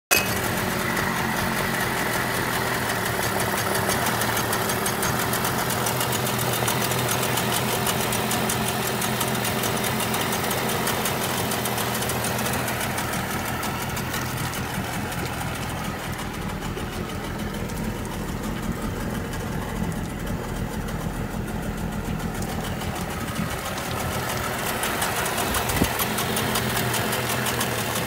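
Suzuki DT15C 15 hp two-stroke outboard engine, test-run with its leg in a tub of water, running steadily. The higher part of its sound drops away for a while mid-way and then comes back, and there is a single sharp click near the end.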